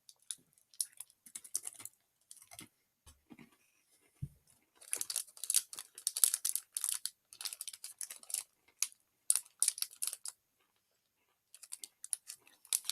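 Crisp crackling and crunching from a crunchy butter waffle snack being eaten, with its wrapper handled. It is sparse at first, then a dense run of sharp crackles from about five seconds in until near the end.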